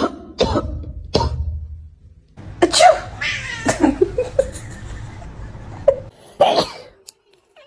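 A person coughing in short, sharp bursts, with a cat's brief pitched calls mixed in through the middle.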